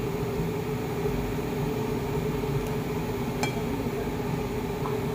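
Steady hum of a running household appliance, a constant low drone with a faint steady tone, and one light sharp click about three and a half seconds in.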